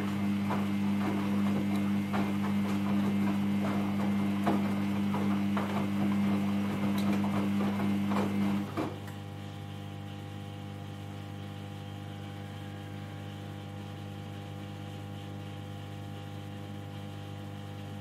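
Samsung Ecobubble front-load washing machine tumbling wet laundry in its wash phase: the drum motor hums steadily while the clothes knock and slosh inside the drum. About halfway through, the motor stops and the drum comes to rest, leaving a quieter steady hum.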